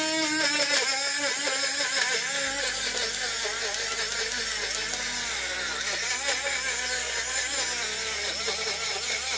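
Portable USB rechargeable bottle blender with a six-blade assembly running on its small battery motor, blending chunks of watermelon and pineapple. Its whir is continuous, and its pitch wavers up and down.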